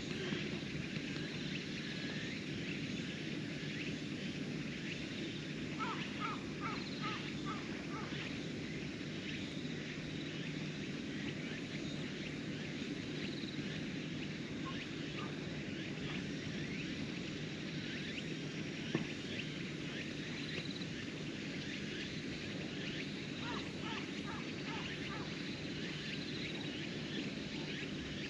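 Steady outdoor ambience, with insects chirping in the grass and two short runs of quick bird notes, and a single brief click about two-thirds of the way through.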